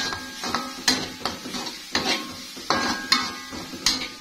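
Metal spatula scraping and knocking against a metal wok while stirring chili paste, about three strikes a second, each leaving a brief metallic ring.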